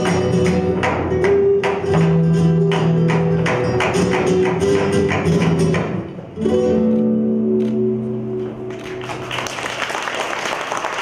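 Flamenco guitar playing a farruca with rapid heel-and-toe footwork (zapateado) from flamenco shoes on the stage floor, a quick run of sharp strikes. About six seconds in the music drops out briefly and a final guitar chord rings out, and applause starts near the end.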